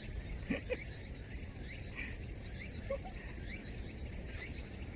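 Outdoor summer insect chorus: a steady high buzz that swells at regular intervals, with scattered short, rising bird chirps.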